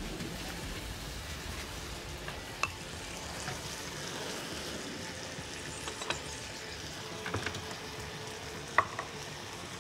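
A pan of strawberries sizzling steadily on the hob while being stirred, with a few light clicks of a utensil against the pan; the sharpest click comes near the end.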